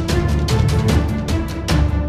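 Background music track with a steady, driving beat and low drums.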